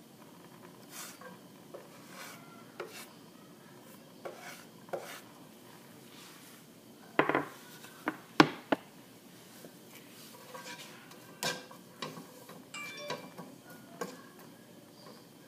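Cookware clatter from a spatula and frying pan as julienned ginger is stirred in oil: scattered clicks and light scrapes, with a cluster of sharper knocks about seven to nine seconds in.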